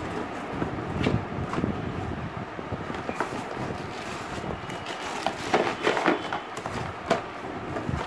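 Cardboard carton and plastic wrap being handled: rustling, crinkling and scraping with scattered knocks, busiest about five to six seconds in, over a steady background noise.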